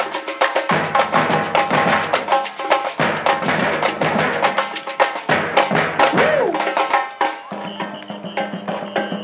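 Samba batucada percussion band playing a fast, driving rhythm on surdo bass drum, snare drum and hand percussion. Near the end the deep drum beats drop out and the playing gets quieter.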